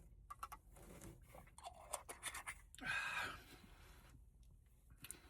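Faint mouth sounds of a person sipping and swallowing a shot of liquor: a few short wet clicks, then a breathy exhale about three seconds in.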